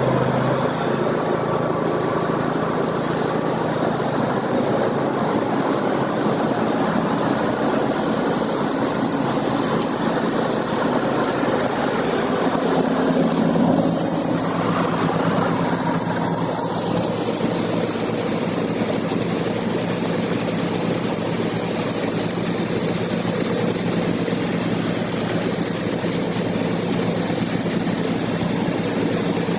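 A sawmill's engine running steadily. About halfway through, a thin high whine grows stronger and holds.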